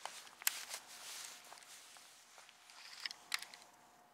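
Faint handling sounds of a fishing rod and baitcasting reel while a lure is retrieved: a few sharp clicks and light scuffs, with a faint steady whine from about a second in.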